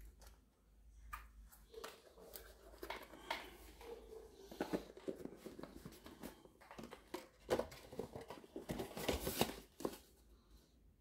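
Faint handling noise: scattered clicks, taps and rustling as wristwatches with metal and leather straps are picked up and set down on a fabric-covered display. The clicks grow busier partway through, with a longer rustle near the end.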